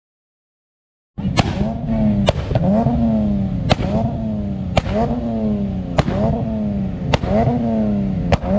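Car engine revved in quick repeated blips, about one a second, each rising and falling in pitch with a sharp crack. It starts about a second in.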